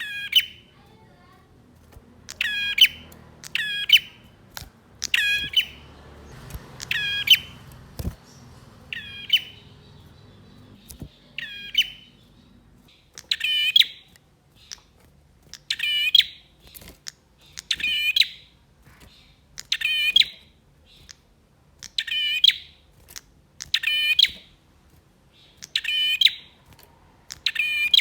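Male prenjak (prinia) calling over and over: short, sharp, rattling chirps repeated about once a second, coming a little faster in the second half.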